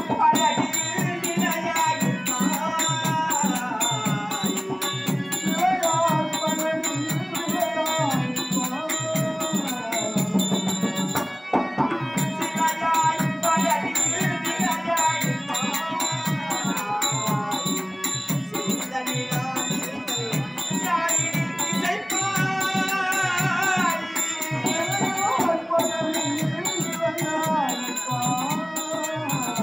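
Tamil stage-drama song: a solo voice sings a melody over harmonium accompaniment and a steady beat of hand percussion with bright, rattling strokes.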